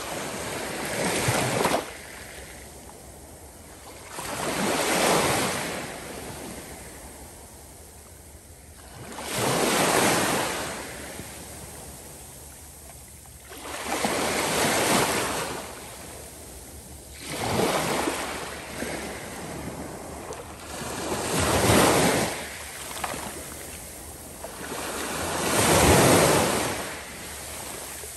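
Small waves breaking and washing up over wet sand at the water's edge, each rush of surf swelling and fading about every four to five seconds, seven times.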